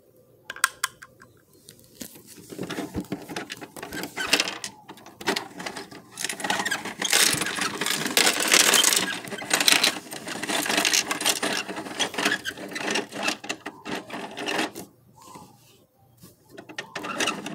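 Plastic toys rattling and clattering as they are handled, in dense rapid clicks. It starts with a few clicks, runs thick from about two seconds in, and eases off briefly near the end.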